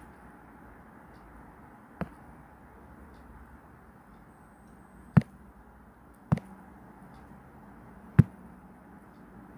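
Five sharp fingertip taps on a tablet's touchscreen, picked up through the device, spaced unevenly about one to three seconds apart over a faint steady hum.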